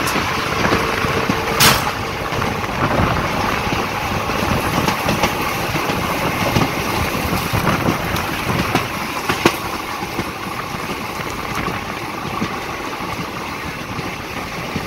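Passenger train running at speed, heard from an open coach door: a steady rush of wheel-and-rail noise and wind, with a sharp click about a second and a half in and another about halfway through.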